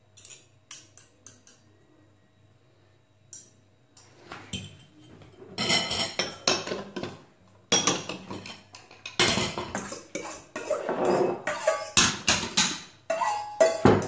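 A fork clinking against a stainless-steel mixing bowl as seafood is tossed, in scattered light taps. About five seconds in it gives way to louder, denser clatter and scraping as a second steel bowl is tipped against the first to slide sliced vegetables in.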